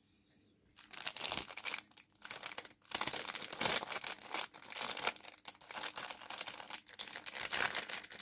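Clear plastic bag crinkling and rustling as plastic model-kit sprues are handled, starting about a second in and going on in quick, irregular crackles.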